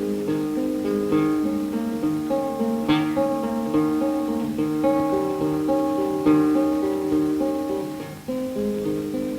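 Background music: acoustic guitar playing a melody of plucked and strummed notes.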